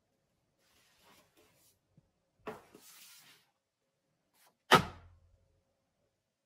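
Paperback books being handled: soft rustling, then a brushing, sliding sound about two and a half seconds in. Nearly five seconds in, a paperback is dropped flat onto a stack of books with one sharp thud.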